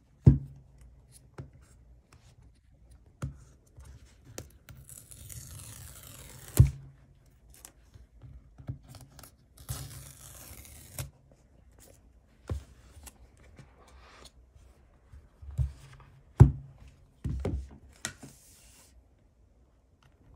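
Paper tear strips on a sealed iPhone box being ripped off in two longer rasping pulls, with a few sharp knocks of the cardboard box being handled.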